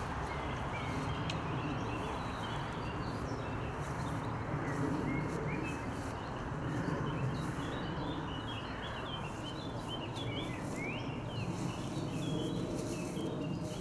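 Small birds chirping in many short, quick calls that slide up and down, busiest in the last few seconds, over a steady low background noise.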